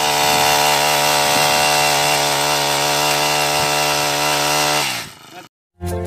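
Brush cutter engine running at high, steady revs while driving a tiller attachment through soil. About five seconds in the revs fall and the sound cuts off.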